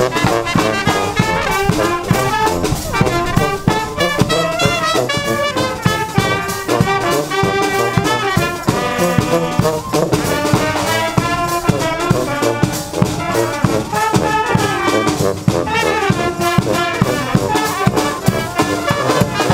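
Street brass band playing a tune: trumpets, saxophones and a sousaphone over a regular beat from a bass drum and a snare drum.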